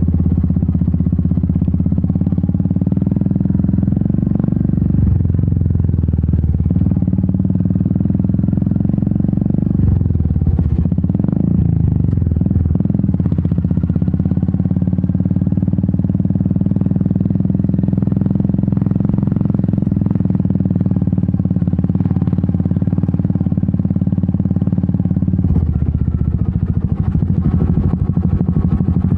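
Royal Enfield Meteor 350's single-cylinder engine and exhaust running under way. The note shifts about ten to thirteen seconds in, and turns lower and more uneven near the end.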